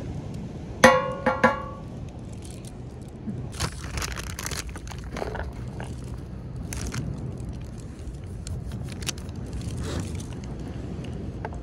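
Metal camp cookware clinking: three quick ringing strikes about a second in, followed by scattered rustling and scraping handling noises as dishes and utensils are moved about.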